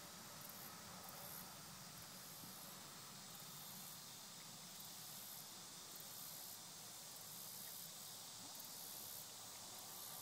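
Faint outdoor ambience: a steady hiss with a very high insect buzz pulsing on and off about once a second.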